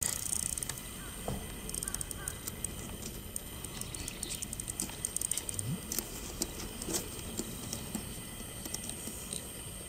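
Quiet outdoor ambience with scattered small clicks and taps, and a few faint short chirps.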